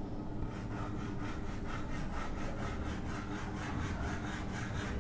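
Chalk scraping on a chalkboard as a series of short strokes is drawn, a quick, even rhythm of several strokes a second.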